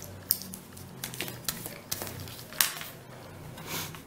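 Origami paper rustling and crackling as a folded module is pressed flat and then picked up and handled, a series of short dry crackles with the sharpest one about two and a half seconds in.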